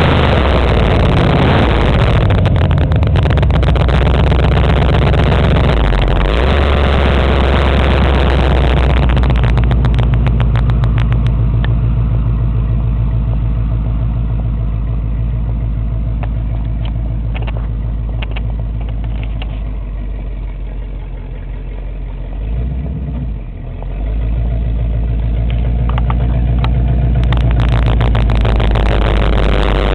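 Hot rod roadster's exposed engine running through side pipes with a low, steady exhaust note as the car pulls away. The sound grows fainter through the middle, dips briefly, then gets louder again in the last few seconds as the car comes closer, on a poor-quality recording.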